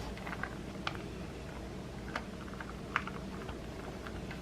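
Scattered light clicks and taps from hands and a spoon handling the filling and rice paper while an egg roll is assembled, over a steady low hum.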